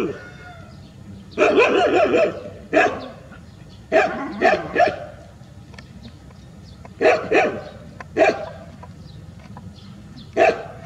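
A group of street dogs barking and yelping in short, loud bursts, some of several quick barks in a row, with quieter gaps between.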